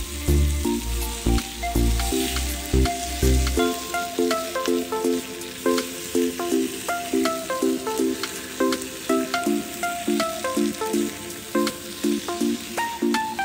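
Food sizzling as it fries in oil in a pan, under background music with a plucked, rhythmic melody. The music's bass line drops out about three and a half seconds in.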